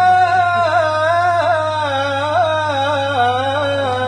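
A man's voice in melodic Quran recitation (tajweed), drawing one vowel out into a long held note. It has ornamental turns from about a second in and slides lower near the end.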